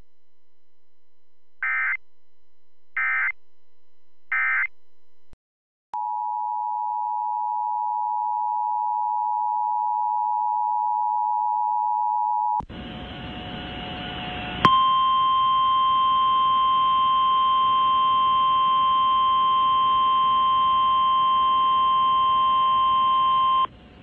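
Emergency Alert System audio: three short data bursts of the end-of-message code close the first alert. After a brief cut, the steady two-tone EAS attention signal sounds for about six seconds. Then comes static-laden relayed weather-radio audio carrying the single-tone NOAA Weather Radio warning alarm for about nine seconds, which cuts off suddenly.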